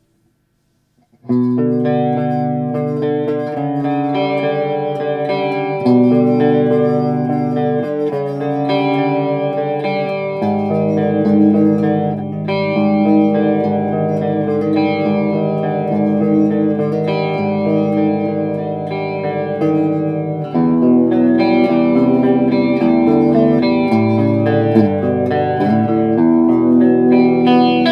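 Fender Jaguar electric guitar playing sustained chords through an Electro-Harmonix Small Clone chorus pedal, starting about a second in, with the chord changing every second or two.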